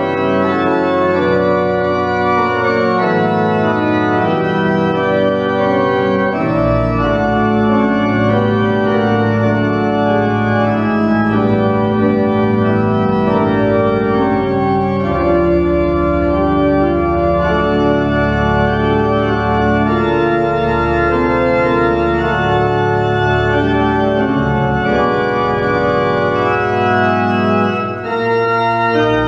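Church pipe organ playing the postlude after the benediction: sustained full chords moving every few seconds, with deep pedal bass notes coming in about six seconds in.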